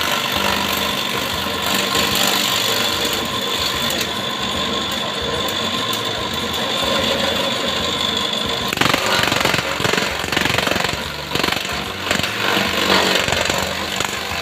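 Homemade electric grass chopper running: an electric motor turns a round steel disc carrying two blades through a pulley, with a steady whine. From about nine seconds in, grass is being chopped, adding a loud, uneven chopping noise that comes and goes.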